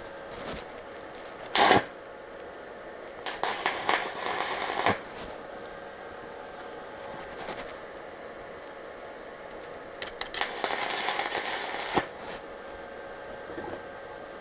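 Stick (arc) welding on the steel of a trailer jockey wheel: a brief crackle of a tack, then two runs of the arc sizzling and crackling for about one and a half seconds each, with a pause between them. A faint steady hum runs underneath.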